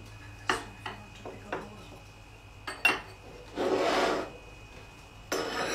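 Crockery and a metal slotted spoon handled on a wooden table: a few light clinks and knocks, then a longer scrape about three and a half seconds in and a shorter one near the end.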